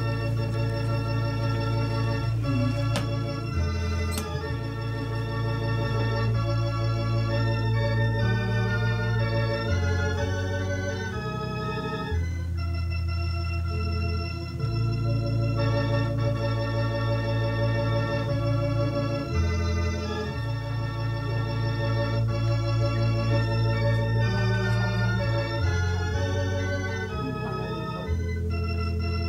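Organ music: slow held chords over long sustained bass notes that change every few seconds.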